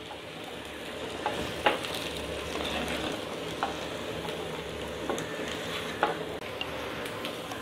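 A wooden spatula stirs boiled potato cubes in a clay pot, with a few light knocks and scrapes against the pot over a faint, steady sizzle of oil on low heat.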